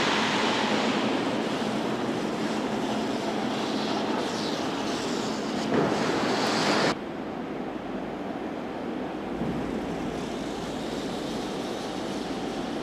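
Steady machinery noise of a car assembly plant, with no distinct events, dropping abruptly to a quieter, duller hum about seven seconds in.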